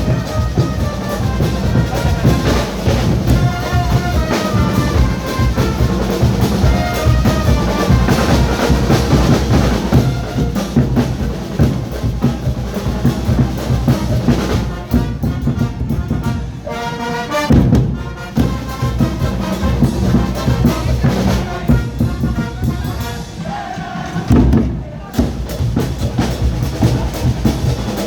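Carnival music: brass horns playing a melody over loud, dense drumming, with a couple of brief breaks in the drums.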